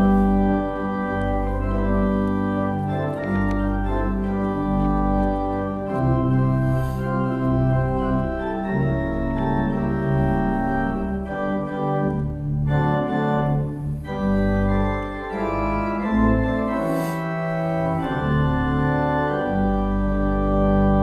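Church organ playing a hymn tune in sustained full chords over a moving bass line, with short breaks between phrases.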